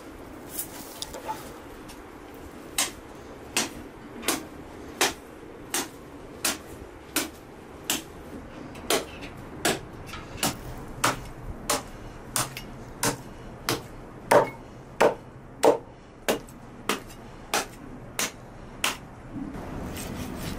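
Meat cleaver chopping a lamb carcass on a wooden cutting board. The knocks come in a steady rhythm, a little faster than one a second, about two dozen strokes. They start about three seconds in and stop near the end.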